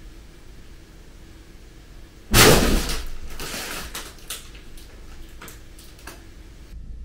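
A cat's fabric play tunnel rustles in one sudden loud burst about two seconds in as a cat scrambles inside it. It fades quickly, then a few lighter scratches and rustles follow.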